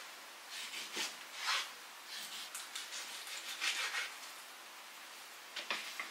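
Kitchen knife cutting raw chicken breast on a wooden cutting board: a series of short, uneven slicing strokes and taps of the blade on the board, with short pauses between.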